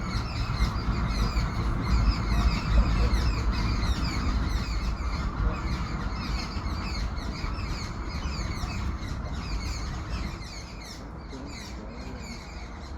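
Many small birds chirping together in a dense, continuous chorus. A low rumble runs underneath and eases about ten seconds in.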